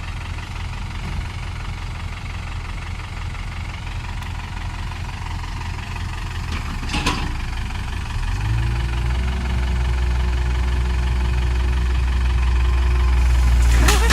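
Heavy diesel engine idling, with a short click about seven seconds in. About eight seconds in it revs up to a steady, much louder run that keeps building toward the end.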